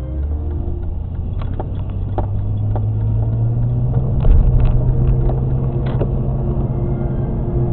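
Car driving, heard from inside the cabin: a steady low road-and-engine rumble that slowly grows louder, with scattered sharp clicks.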